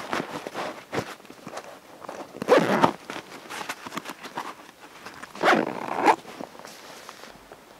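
A zipper on a backpack's fabric side pouch being pulled, in two rasping runs about three seconds apart, with handling rustle and a small click in between.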